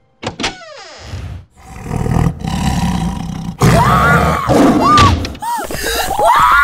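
Cartoon leopard's roar, a loud low rumbling growl, followed from about three and a half seconds in by a boy's loud, wavering screams of fright.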